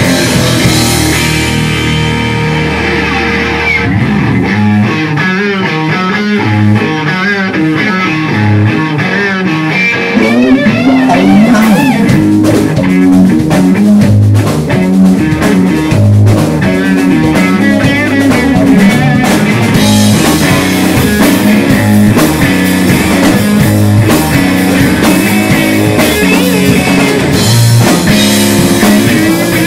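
Live rock band playing an instrumental passage: electric guitar playing a lead line with bent, wavering notes over bass guitar and drum kit. The band gets louder about ten seconds in.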